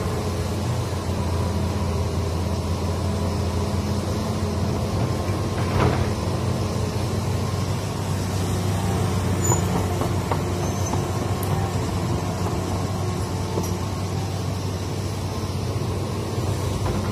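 Hitachi hydraulic excavator's diesel engine running steadily while the machine swings and works its boom, with a couple of brief knocks.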